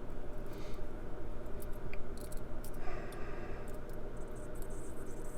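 Lock pick working the pin stack of a Brinks 50 mm padlock under light tension: scattered faint metallic ticks and scraping, bunched about two to three seconds in, over a steady low hum.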